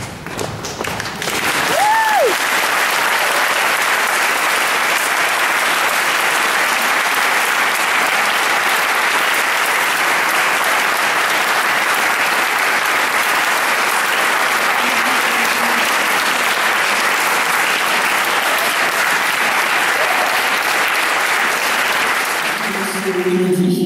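Audience applauding steadily, building up in the first second or two, with one short pitch glide from the crowd about two seconds in.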